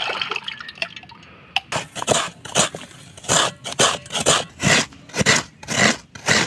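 Coconut flesh being grated by hand, a coconut half drawn against the toothed blade of a coconut scraper in short rasping strokes, about two a second. Just before the strokes begin, a trickle of coconut water runs briefly into a metal wok.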